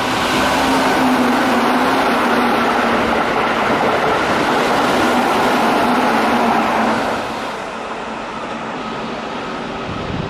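Keihan 6000 series electric commuter train passing through a station at speed without stopping: a loud steady rush of wheels on rails with a constant low hum, which drops away after about seven seconds.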